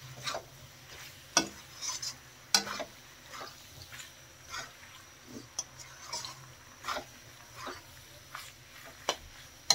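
Slotted metal spatula scraping and clinking against a metal kadhai as macaroni in tomato masala is stirred over high flame, in irregular strokes. A faint sizzle of the frying masala runs underneath.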